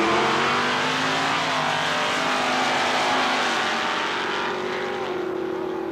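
Drag-race cars launching off the line at full throttle and accelerating away down the strip. The engine note rises, drops once about a second and a half in, and fades toward the end as the cars pull away.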